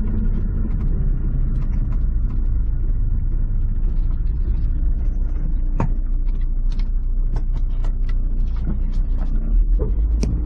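Honda S2000 driving, heard from inside the cabin: a steady low drivetrain and road rumble with scattered clicks and knocks, the sharpest about six seconds in and another near the end. The driver hears a skipping as the clutch engages, almost like there's some teeth missing from the diff, after a crash bent the rear subframe.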